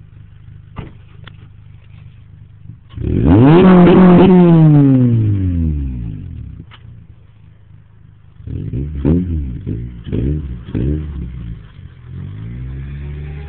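Honda Civic Si engine through a 63 mm (2.5-inch) eBay knock-off exhaust: idling, then one long rev about three seconds in that climbs and falls away over a few seconds, then a quick string of throttle blips, and another rev building near the end.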